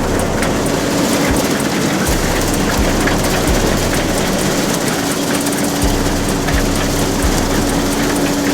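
Farm machinery running steadily: a constant engine drone with a steady hum, a rushing rattle over it and low regular thumps.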